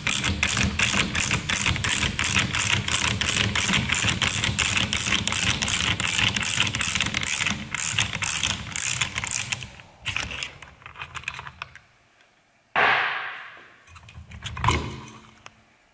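Pass-through ratchet on an 18 mm socket clicking rapidly as it is swung back and forth, at about four to five clicks a second, undoing the nut that holds a strut's top mount to the shock absorber rod. The clicking stops about ten seconds in, and a sudden loud clatter follows near the end.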